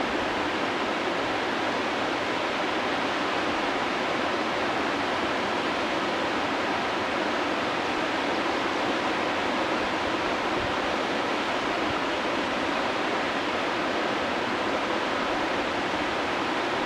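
Whitewater rapid rushing steadily: the constant churning noise of a river wave and the white water around it.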